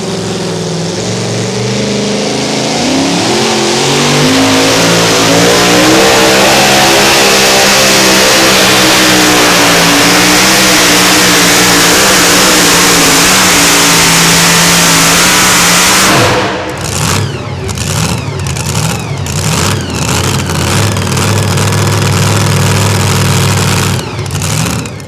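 Engine of a pulling vehicle revving up and held at high revs for a pull, loud and steady. About two-thirds of the way through it cuts back abruptly to lower, uneven running.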